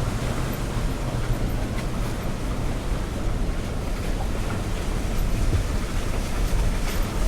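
Toyota Tacoma pickup being driven slowly along a rough 4x4 trail, a steady low rumble of engine, drivetrain and road noise.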